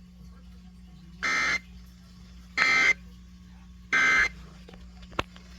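Emergency Alert System end-of-message code: three short, loud digital data bursts about a second apart, the signal that closes an EAS test. A steady low hum runs underneath, and there is a brief click near the end.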